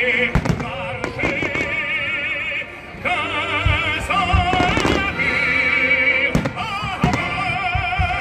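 Fireworks display: sharp firework bangs every second or so, over loud music with an operatic voice holding notes with a wide vibrato.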